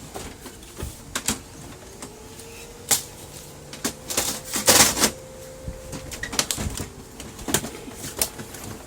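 Scattered plastic clicks and knocks from the casing of a Brother laser printer as its cover is handled and fitted back into place, with a louder clatter about five seconds in.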